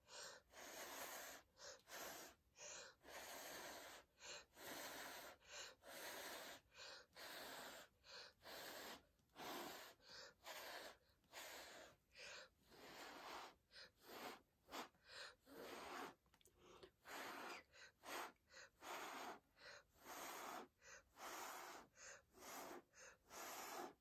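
A person blowing by mouth on wet acrylic paint, a long series of short faint puffs of breath at roughly one a second, to push the white topper down the canvas.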